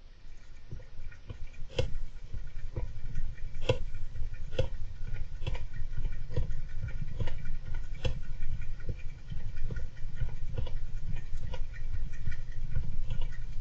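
Golden hamster active in its cage: a steady run of sharp clicks, a little more than one a second, over a low rumble.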